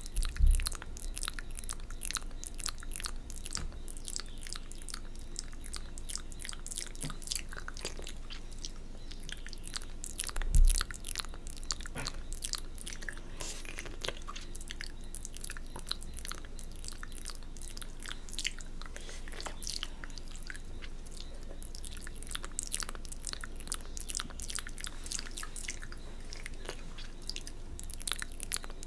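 Wet mouth sounds recorded close to the microphone: licking and smacking with a constant run of small sticky clicks, the performer's mouth and spit-wet fingers making 'cat bath' and spit-painting sounds. Two low thumps stand out, one about half a second in and one about ten seconds in.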